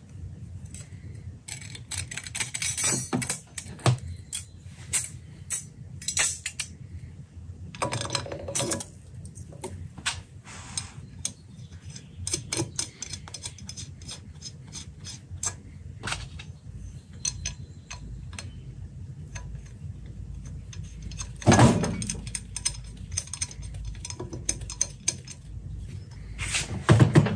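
Metal parts being handled on a steel workbench: a gasket and a steel flange are fitted against a turbocharger's turbine inlet flange. Scattered clinks, taps and scrapes of metal on metal, with louder knocks a few times over a low steady hum.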